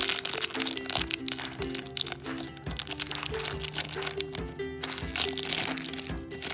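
A metallic foil wrapper being crinkled and crackled by hand as it is pulled open, over background music with a simple repeating melody.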